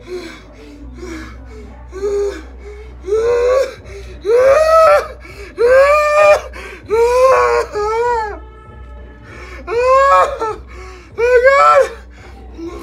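A man's voice letting out a string of about seven loud, drawn-out high cries, each arching up and then down in pitch, with no words.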